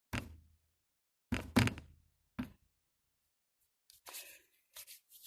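A few separate knocks and thuds of a small slime jar being handled, the loudest about a second and a half in, then soft scraping and rustling near the end.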